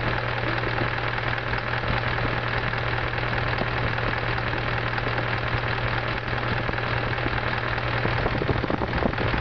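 Car engine idling steadily, carrying the strange running noise that is put down to a slipping alternator belt.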